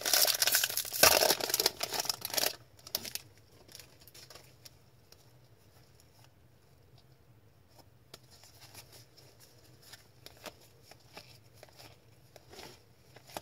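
A hockey card pack's foil wrapper being torn open, with loud crinkling and tearing for about the first two and a half seconds. After that it is nearly quiet, with faint small ticks from the cards being handled and flicked through near the end.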